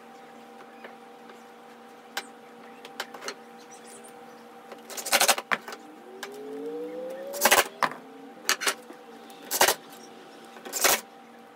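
Ryobi cordless impact driver driving screws into an MDF jig base in four short bursts, with a rising motor whine before the second. A few light clicks of parts being handled come first, over a steady faint hum.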